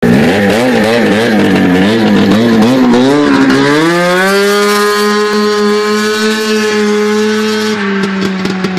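Golf cart powered by a 570 cc Yamaha snowmobile engine driving past and away. The engine's revs waver up and down at first, then climb to a steady high-pitched run as it speeds off, easing slightly near the end.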